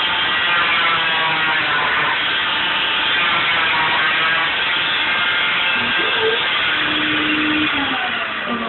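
Electric oscillating cast saw running steadily with its dust-extraction hose as it cuts through a pink arm cast, a constant loud whine.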